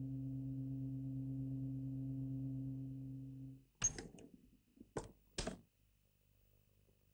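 A steady low hum with overtones that cuts off about three and a half seconds in, followed by three sharp clicks, the first the loudest.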